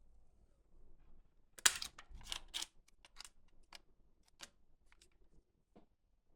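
A run of about a dozen irregular sharp clicks and taps of small hard objects, the first and loudest about a second and a half in, the rest fading out over the next four seconds.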